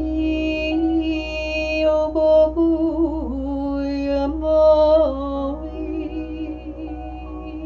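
A woman's voice toning without words: long held notes with a slight waver, sliding between pitches, louder about halfway through and easing off near the end, over a low steady hum.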